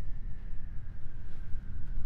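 Low, steady rumbling drone with a thin high tone that slowly slides down in pitch.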